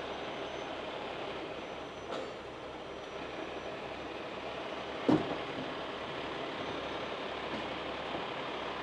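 A 50-ton heavy rotator tow truck runs steadily while it slowly lifts the rear of an overturned, empty box truck. A short creak comes about five seconds in.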